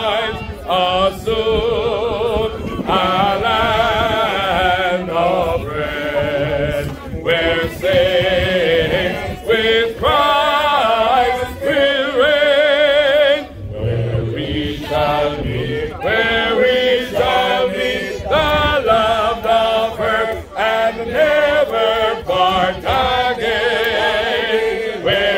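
A man's voice leading a slow hymn in long, wavering held notes, with a group of people singing along.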